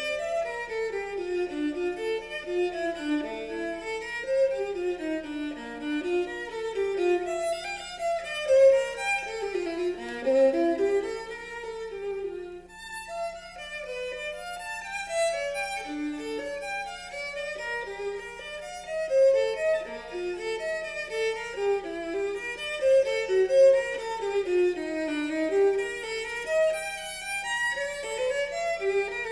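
Violin music played back through a Western Electric horn loudspeaker system, a 4165 speaker driven by 1126 and 59 amplifiers. The violin plays quick running melodic passages that rise and fall.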